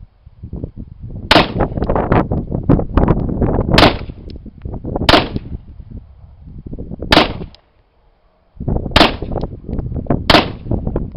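Single shots from a 9mm Glock 19 in a Micro Roni carbine kit, six sharp cracks fired one at a time about one to two and a half seconds apart. Heavy low rumbling noise fills the gaps between shots.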